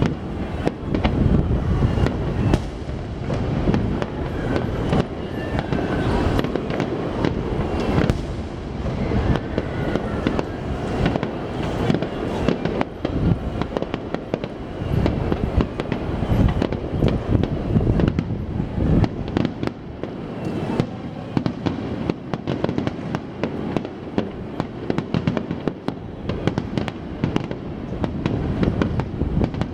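Fireworks display: a dense, unbroken barrage of bangs and crackling as many shells burst in quick succession.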